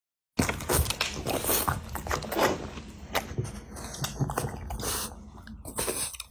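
A dog eating, with close, irregular biting and chewing sounds that start just after a brief dead-silent gap at the beginning.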